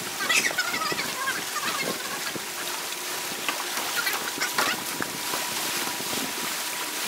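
Fast-forwarded sound of people wading and moving in shallow lake water, with short high, squeaky chatter from voices raised in pitch by the speed-up, over a steady hiss of water.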